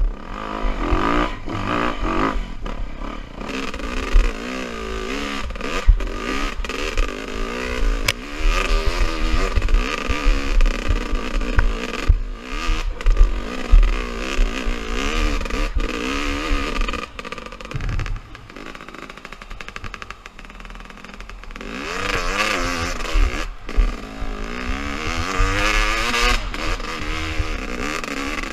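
Dirt bike engine revving up and down as it is ridden over rough trail, with scattered clattering knocks. The engine eases off for a few seconds about two-thirds of the way through, then picks up again.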